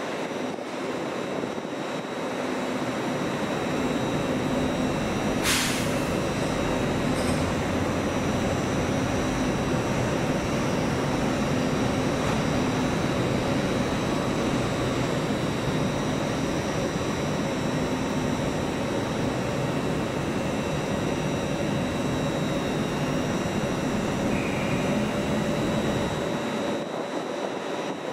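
Northern class 170 Turbostar diesel multiple unit pulling away, its underfloor diesel engines giving a steady drone with a thin whine over it. There is a single sharp click about five seconds in, and the low drone falls away near the end.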